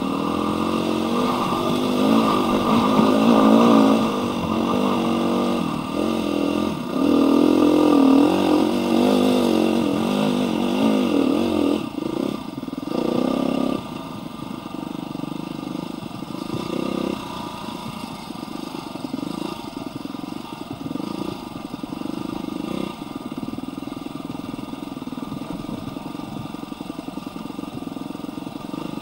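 Husqvarna dirt bike engine heard from the rider's helmet camera, revving up and down as the bike is ridden along a trail. It is louder with rising and falling revs through the first half, then drops to a quieter, steadier run from about halfway.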